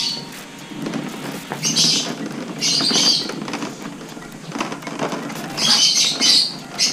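A cloth rubbing over the plastic body panels of a Yamaha Aerox scooter: short swishing wipes, about two seconds in, three seconds in and again near the end.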